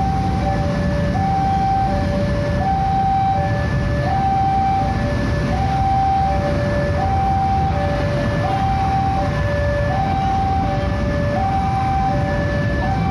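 Railway level-crossing warning alarm sounding a steady two-tone signal, high and low tones alternating about every half second: the crossing is closing for an approaching train. Underneath runs the low, steady rumble of idling motorbikes and cars.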